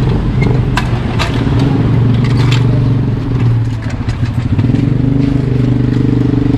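A motor vehicle engine idling close by, a steady low hum, with a few sharp metallic clicks and clacks in the first few seconds as a steel wheel clamp is fitted to a truck's front wheel.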